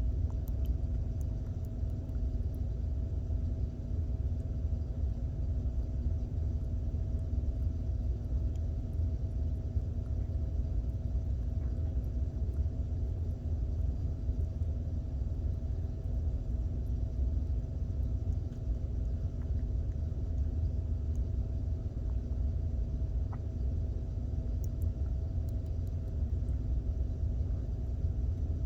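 Steady low rumble with a faint steady hum over it, unchanging throughout.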